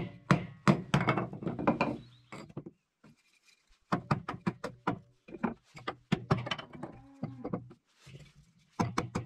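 A knife being batoned through a piece of wood to split kindling: a wooden baton knocks the knife's spine in quick runs of sharp strikes, about three a second, with short pauses between the runs.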